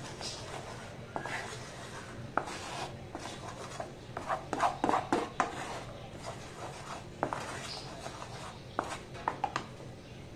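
Bamboo spatula scraping and knocking against a non-stick frying pan while quickly stirring foaming honeycomb toffee (dalgona) just after the baking soda has gone in: irregular scrapes and taps, busiest a few seconds in and again near the end.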